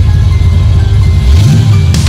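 GM Performance Parts ZZ430 small-block V8 in a 1964 Chevy II Nova running just after start-up, revved about one and a half seconds in, with music playing over it.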